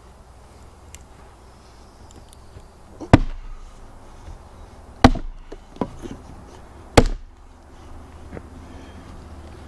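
Three heavy blows of a long-handled maul striking a firewood round, about two seconds apart, each a sharp crack, with a lighter knock between the second and third.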